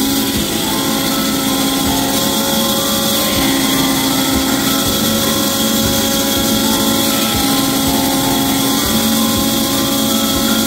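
Bandsaw on a multipurpose woodworking machine running and cutting through a wooden batten: a steady whir whose tones shift every couple of seconds, over a low, uneven rumble.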